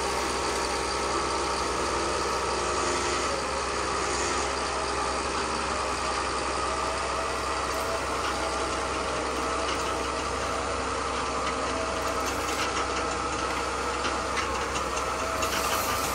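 A steady engine-like drone, like a motor idling, runs throughout without changing. In the last few seconds there is light scraping as the toy loader's bucket is pushed through wet sand.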